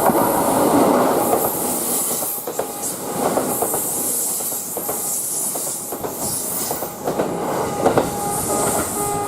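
Kintetsu 1810-series train passing through, its wheels clacking over rail joints amid a steady rush of running noise. The level crossing's warning bell keeps ringing faintly under it.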